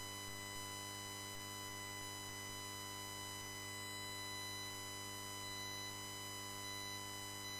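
Steady electrical hum and buzz on the audio line, a constant low hum with a thin set of high steady tones above it, unchanging throughout.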